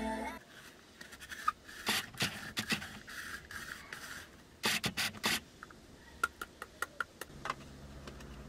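Scattered scrapes, rubs and clicks of handling and movement inside a car cabin, in two busier clusters. A faint steady low hum comes in near the end.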